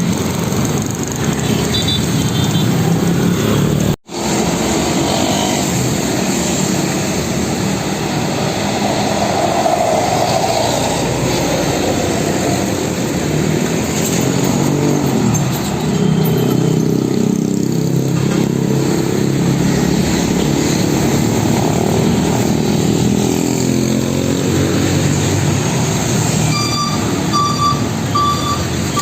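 Heavy diesel truck engines running in road traffic, their pitch shifting as vehicles move. Near the end a truck's reversing beeper starts, a regular series of short beeps.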